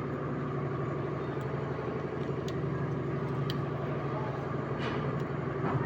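A motor or engine running steadily: an even, unchanging hum with several steady tones.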